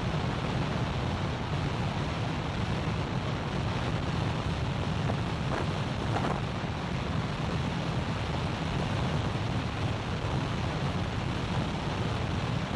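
Steady rush of wind noise on the microphone of a Yamaha YZF-R3 sport bike ridden flat out at about 160–170 km/h, on a top-speed run. The noise is even throughout and heaviest in the low end.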